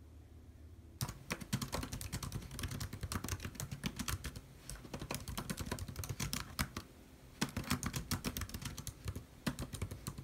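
Fast typing on an LG laptop's keyboard: a quick, dense run of key clicks starting about a second in, with a short break about two-thirds of the way through before it resumes.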